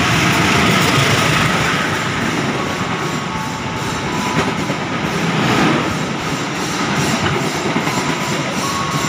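A KAI diesel-hauled passenger train passing along the platform: the locomotive, then its coaches' wheels clattering over the rails. The sound stays loud and steady throughout.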